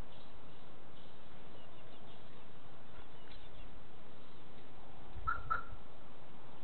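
Steady hiss, with two short high chirps about a quarter-second apart about five seconds in, over a brief dull thump.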